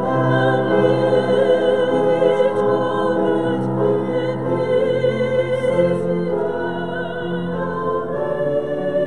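Sung sacred music: voices sing held notes with a wide vibrato, changing pitch every second or two.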